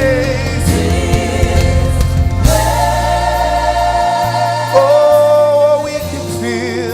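Live gospel worship music: sustained sung vocals with choir over keyboard and bass. The low bass drops away about four seconds in.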